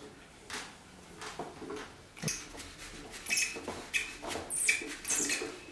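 Rock-hard felt honing wheel being slid and worked onto the Tormek's metal shaft by hand: a series of short scrapes and squeaks, louder and closer together in the second half.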